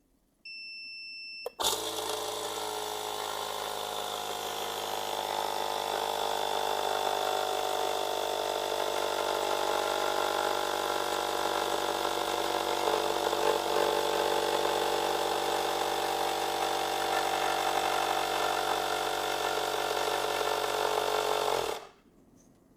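Screen bubble-remover machine starting up: a beep of about a second from its controls, then its pump runs loudly and steadily for about twenty seconds, pressurising the chamber with the pressure turned up, and cuts off suddenly near the end.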